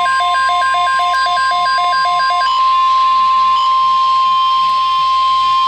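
NOAA Weather Radio's steady 1050 Hz warning alarm tone, sounding ahead of an EAS severe thunderstorm watch message. For about the first two and a half seconds, fast beeps alternating between a low and a high pitch, about four a second, sound over it; then the steady tone continues alone.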